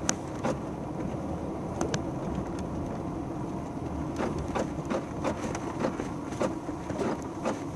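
A steady low rumble, like a vehicle running, with a series of sharp clicks or knocks, most of them in the second half.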